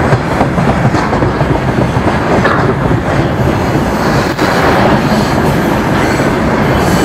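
Freight train of tank wagons rolling past close by, loud and steady, the wheels clattering over the rail joints.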